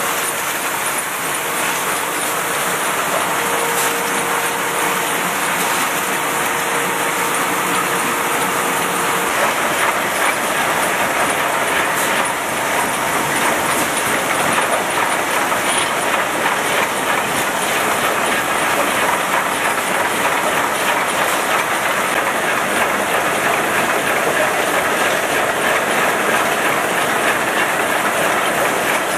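Rotary bottle-labelling machine and its bottle conveyor running at production speed: a steady, dense mechanical clatter and rattle of many quick clicks. A faint steady hum sits under it for about the first third.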